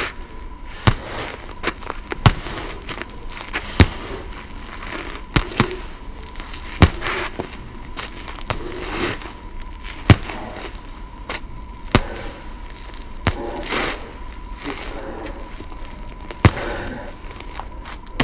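Yellow toy swords clacking together as two people sword-fight: about ten sharp cracks, irregularly spaced roughly one to two seconds apart. A faint steady tone runs beneath.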